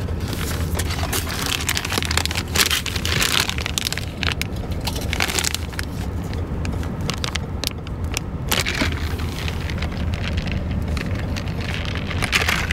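Wrapper and plastic bag crinkling in the hands, in irregular crackly bursts, over the steady low hum of a car cabin.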